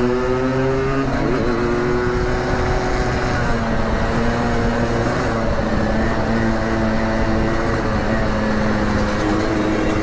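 Two-stroke motorcycle engines running while riding at a steady pace, their pitch mostly level with small rises and dips, over a constant rush of wind and road noise.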